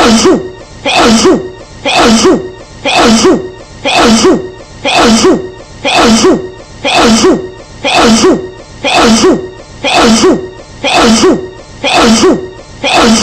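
A woman's sneeze, the same sneeze repeated over and over in a loop about once a second, about thirteen times in a row: each a brief voiced lead-in followed by a sharp, noisy burst.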